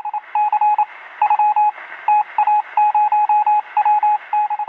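Morse-code-style beeping: a single steady tone keyed on and off in short and longer pulses, over a hiss of radio static.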